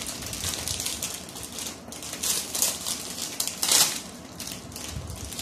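A plastic snack-cake wrapper crinkling and rustling as it is torn open by hand, with the loudest crackling bursts about two and a half and nearly four seconds in.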